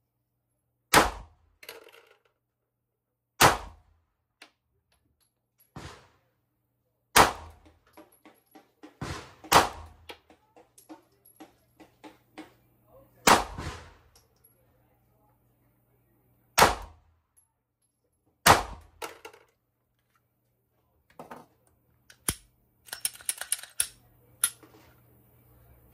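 Glock 43X MOS 9mm pistol firing single shots at a slow pace, about eight in all, each a sharp crack with a brief ring after it. Near the end there is a quick run of fainter metallic clicks.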